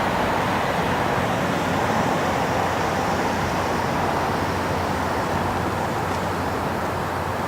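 Steady road traffic noise, an even rushing that eases slightly toward the end.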